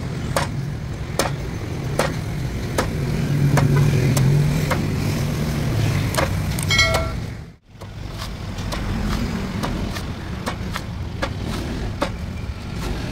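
Cleaver chopping into the husk of a young green coconut: a sharp knock roughly once a second, over a steady low rumble.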